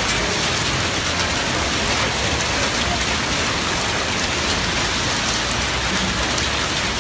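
Hail and rain pelting the road and cars: a steady, dense hiss peppered with many small sharp ticks of hailstones striking.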